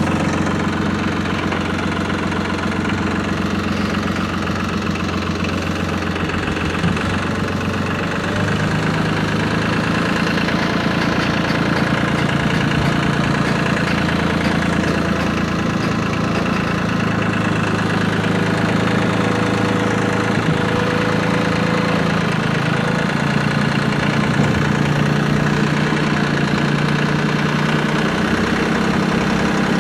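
Tractor engine running steadily, its revs stepping up about eight seconds in.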